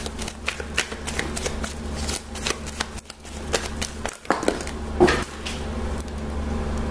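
A tarot deck shuffled by hand: an irregular run of quick card clicks and rustles over a steady low hum.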